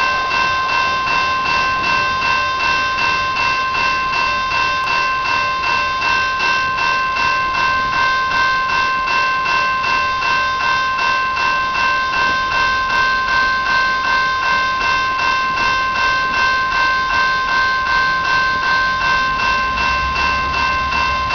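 Railroad crossing bell ringing steadily in a fast, even rhythm. Near the end the low rumble of the approaching diesel locomotive comes in under it.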